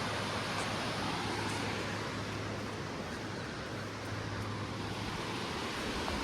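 Steady rushing of creek water, an even hiss that holds level throughout.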